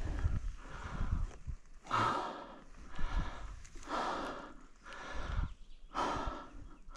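A person breathing hard: deep, noisy breaths in and out, about one a second, close to the microphone. The breathing is from the effort of struggling with a stuck enduro motorcycle on a climb.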